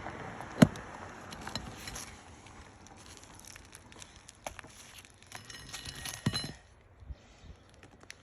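Scattered clicks, taps and crinkling from hands and tools working loose asphalt roof shingles, with one sharp knock about half a second in and a flurry of small ticks near the end.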